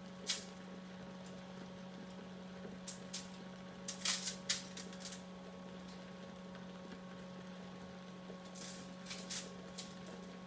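Steady electrical hum, with scattered short crinkles and clicks as chicken drumsticks and their juices are handled into a foil-lined roasting pan; the loudest clicks come about four seconds in, and a few more come near the end.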